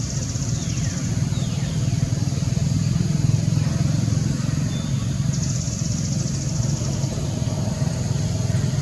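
A steady low rumble, like an engine running nearby. A high buzz sounds just at the start and again from about five and a half to seven seconds in. Two short falling whistles come about a second in.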